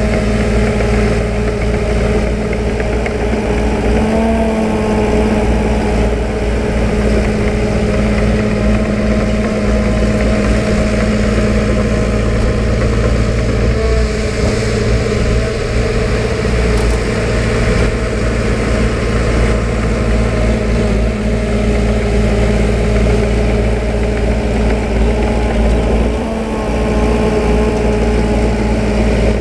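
Diesel engine of heavy construction equipment running steadily, its pitch shifting briefly about four seconds in and dipping again near the end.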